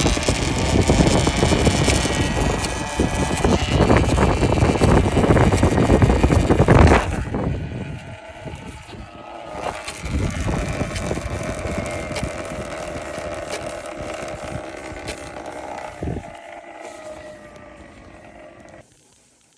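Talaria MX5 electric dirt bike running: motor and chain-drive whine over a loud rumble for the first seven seconds, then quieter as the whine slowly falls in pitch, with a sharp knock about sixteen seconds in; the sound cuts off just before the end.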